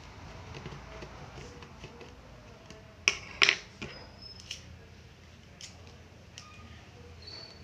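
A small screwdriver and the screws from a laptop's bottom cover clicking as they are handled and set down on a hard tabletop. Two sharp clicks come close together about three seconds in, then a few lighter ticks.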